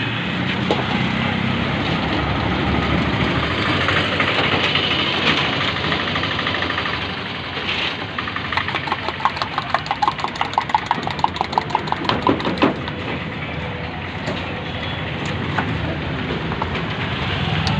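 A spoon beating eggs in a small steel cup: a quick, even run of clinks for about four seconds, starting about eight seconds in. Under it the steady noise of road traffic with idling engines.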